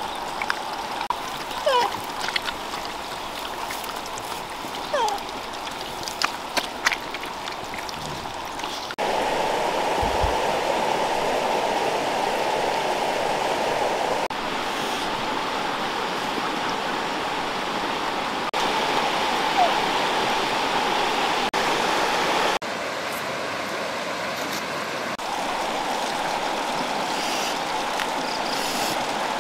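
Steady rush of river water running over stones, its level jumping up or down abruptly several times where the video is cut. Over the first nine seconds come scattered sharp clicks and a few short high glides.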